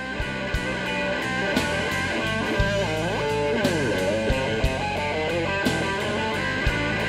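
Blues-rock band playing, with a lead Fender Stratocaster electric guitar over bass and drums. The guitar bends notes up and down about halfway through.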